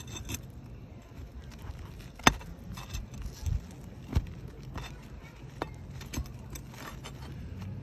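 Flat steel pry bar working under asphalt shingles to break the seal and reach the nails: scattered metal scrapes and clicks, with a sharp knock about two seconds in and another about four seconds in.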